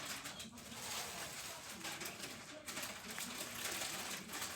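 Pet pig grunting softly in low, wavering tones over a steady hiss.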